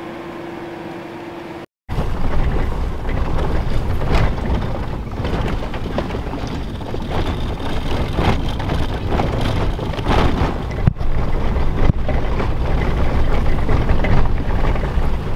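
A faint steady hum for the first couple of seconds, then a pickup truck driving fast over rough prairie grassland, heard from inside the cab: loud, rumbling tyre and engine noise mixed with rushing wind and frequent jolts.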